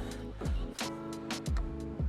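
Background music: a steady instrumental bed with held notes.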